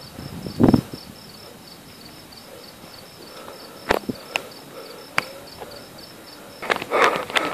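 A cricket chirping steadily, about five chirps a second. A dull thump comes about a second in, a few sharp clicks fall in the middle, and a loud burst of rustling, crackling noise starts near the end.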